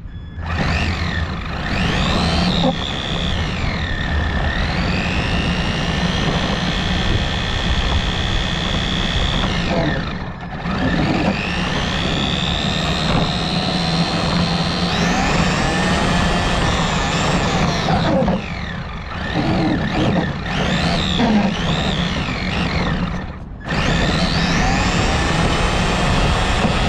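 Traxxas radio-controlled car driving on asphalt, heard from a camera mounted on it: a motor-and-gear whine rises and falls in pitch with the throttle over a steady rumble of tyres on the road. The sound eases off briefly about ten, eighteen and twenty-three seconds in.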